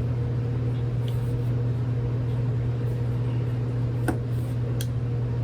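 A steady low mechanical hum from a running machine. Two small sharp clicks come near the end as grip panels are pressed onto the frame of a revolver.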